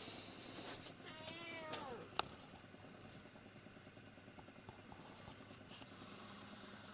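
A domestic cat meows once, a drawn-out call that falls in pitch, and then there is a single sharp click.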